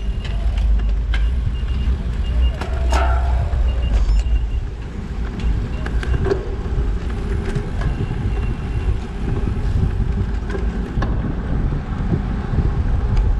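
Steady low rumble of wind and motion on a GoPro Hero7 action camera's microphone, with scattered light clicks.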